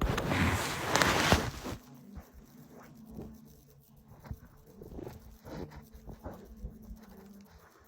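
A sleeping man snoring: one loud, rough snore lasting just under two seconds, followed by faint scattered clicks and rustles.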